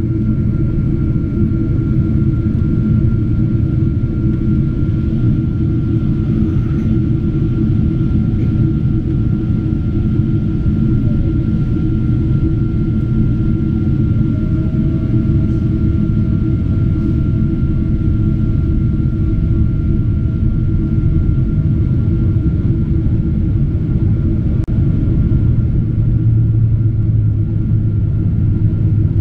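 Steady cabin noise inside a Boeing 777-200 airliner on its descent to land: a loud low rumble of engines and airflow, with a faint steady whine above it. A second faint tone comes in about halfway and fades out some seconds later, and a deeper hum grows stronger near the end.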